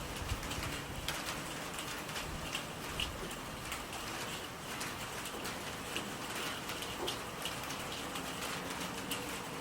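Steady rain falling, with individual louder drops striking close by every second or so.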